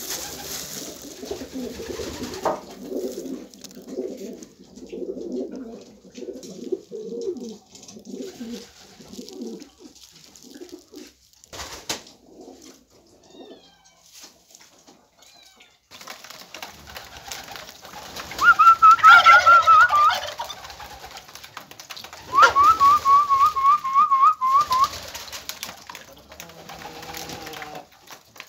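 Domestic pigeons cooing in a loft, a low wavering coo through the first third. A single knock comes near the middle, and later there are two loud bursts of a high, rapid warbling trill, each about two seconds long.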